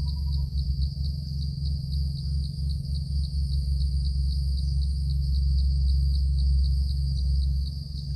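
Crickets chirping in a steady high-pitched pulse about three times a second, over a loud, steady low rumble.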